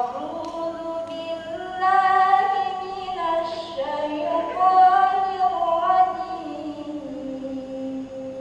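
A woman's unaccompanied solo voice singing long melodic phrases into a microphone, her held notes sliding up and down in pitch, settling on a long low note near the end.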